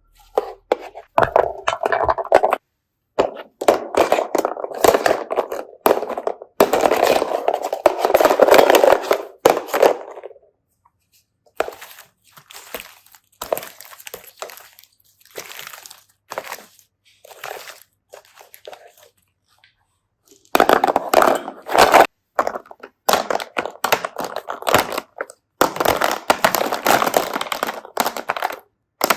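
Slime being pressed and squeezed by hand, crackling and crunching in bursts of a few seconds, with a quieter stretch of lighter clicks in the middle.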